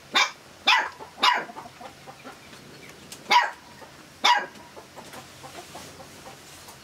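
A dog barking: three quick barks, then two more after a short pause.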